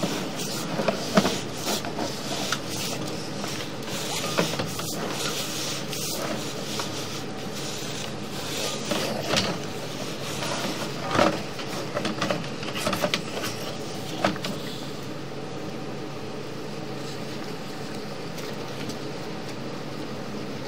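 Sewer inspection camera and its push rod being fed through a mucky drain pipe: irregular knocks and scrapes over a steady mechanical hum. The knocks stop about two-thirds of the way through, leaving only the hum.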